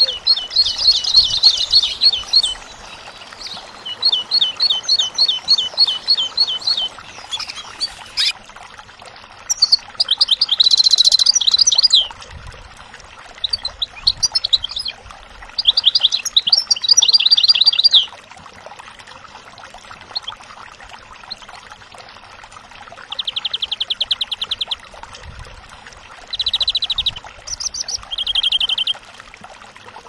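Recorded songs of a great tit and then a European goldfinch. They come as short phrases of quick, high repeated notes, with pauses of a second or two between them.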